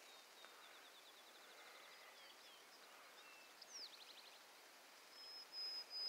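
Near silence with faint bird chirps and quick trills, and a steady high-pitched tone that sets in near the end.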